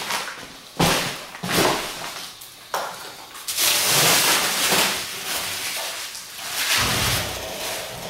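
Clear plastic wrapping crinkling and rustling as it is pulled off a painted metal machine stand. There are sharp knocks about one and three seconds in, and a low thump near the end.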